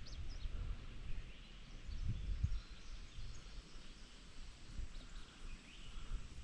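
Wind noise on the microphone, uneven and low, with faint, scattered bird chirps.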